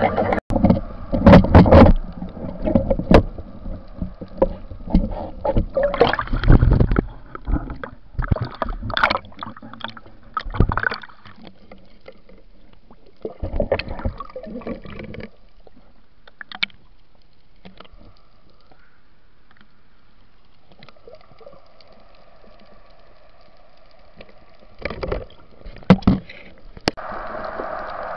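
Water splashing and gurgling around an underwater camera housing as a spearfisher moves at and just below the surface: irregular loud splashes through the first ten seconds or so, then a quieter steady underwater hiss broken by a few more splashes.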